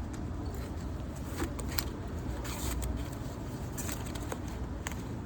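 Foil card-pack wrappers crinkling and crackling in short bursts as the packs are handled, over a steady low rumble.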